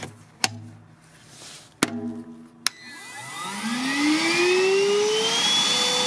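A few sharp clicks as the battery pack is pushed home into the cordless wet/dry vacuum and its cover shut. About three seconds in, the vacuum's 20 V motor starts and spins up, its whine rising in pitch for a couple of seconds, then runs steadily.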